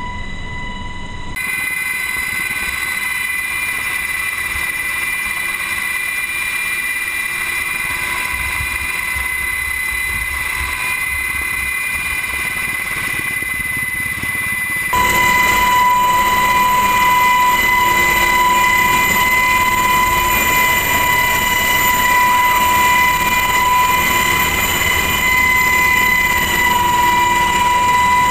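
HH-60 Pave Hawk helicopter heard from inside its cabin in flight: a steady high whine over a dense hiss of rotor and engine noise. It steps louder about fifteen seconds in.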